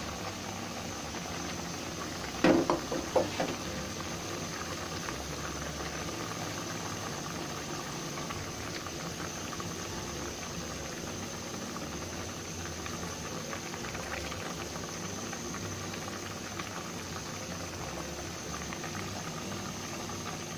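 Food cooking in a pan on the stove, with a steady bubbling hiss. About two and a half seconds in, a quick cluster of sharp knocks stands out as the loudest sound.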